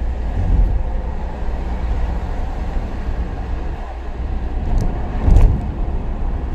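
Car road noise, a steady low rumble, with two heavier thumps about half a second in and about five seconds in.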